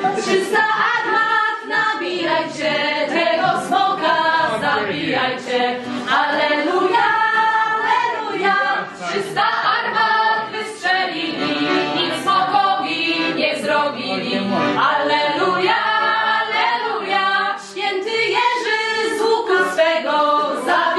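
Voices singing unaccompanied in a chant-like line throughout, with sharp knocks striking now and then.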